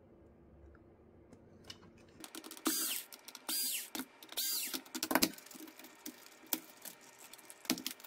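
Cordless electric screwdriver whirring in three short bursts, each about half a second with a high motor whine, as it backs screws out of a robot vacuum's circuit board. Scattered clicks and taps follow as the plastic parts and board are handled.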